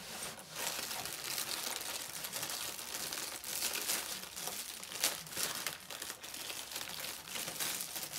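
Packaging being handled and crinkled while accessories are unwrapped: irregular crackling, with a sharper crackle about five seconds in.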